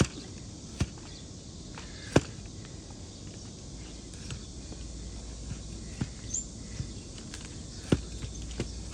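Sharp, isolated knocks, about six of them at irregular intervals with the loudest a little over two seconds in, from tools striking and cutting a donkey's hoof during trimming.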